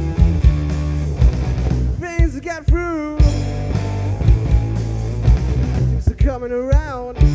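Live blues-rock band playing: sustained guitar and bass chords over regular drum hits, with a wavering high lead line about two seconds in and again near the end.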